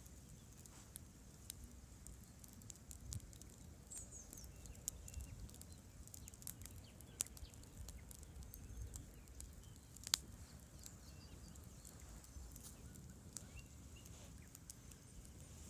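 Wood fire crackling: scattered sharp pops and snaps at irregular intervals, with one louder snap about ten seconds in, over a faint low rumble.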